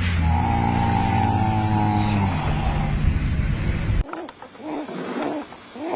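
A sleeping animal snoring with a steady low rumble that stops abruptly about four seconds in. A different animal's snore follows: quick whistling breaths that rise and fall a little more than twice a second.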